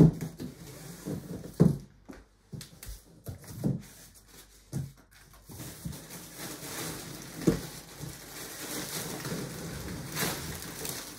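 Cardboard shipping box being handled and its flaps opened, with several dull thumps and scrapes. Then a long rustle of plastic wrapping as the plastic-wrapped stroller is slid out of the box, louder near the end.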